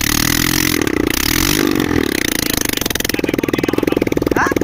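Suzuki Slingshot 125cc four-stroke single-cylinder engine running with no silencer, its raw exhaust note open and loud. It is revved up and down over the first two seconds or so, then drops back to a rapid, even idle of separate exhaust pulses.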